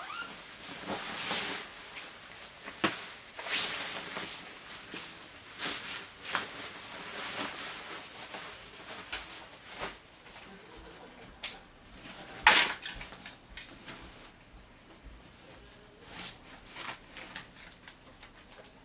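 Gear being handled and packed by hand: rustling with scattered knocks and clicks, and two sharper knocks about two-thirds of the way through.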